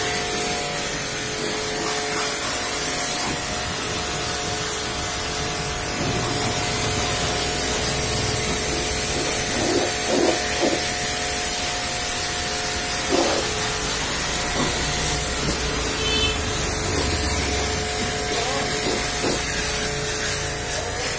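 Pressure washer spraying water onto a car's body panels: a steady hiss with a steady hum under it, and a few brief splashes in the middle.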